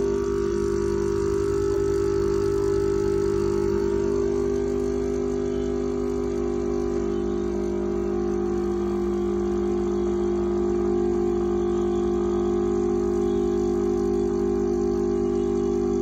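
Caffè Birraio home espresso machine's vibratory pump humming steadily while it pulls an espresso shot under pressure.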